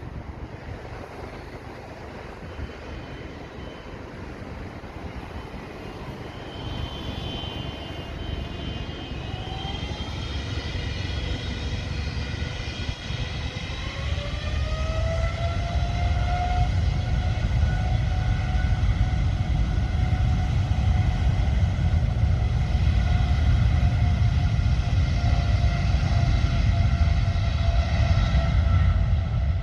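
Boeing 777-300ER's twin GE90-115B jet engines spooling up for departure: a whine rises in pitch over a few seconds, then holds steady while the deep rumble grows steadily louder.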